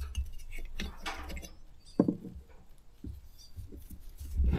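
Gloved hands handling and moving a chainsaw's plastic and metal parts during disassembly: light scattered knocks and rustling, with one sharp knock about two seconds in.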